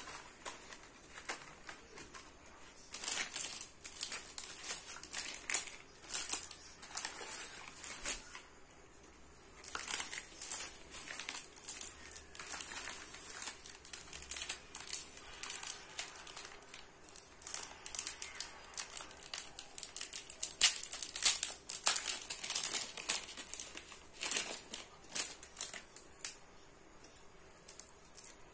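Newspaper and plastic packing crinkling in irregular bursts as it is unfolded and handled to unwrap jewellery, with a short lull about eight seconds in.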